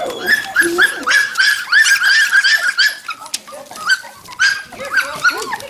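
A litter of young red standard poodle puppies yipping and whining over one another: a quick, crowded string of short high-pitched cries that thins out about halfway through.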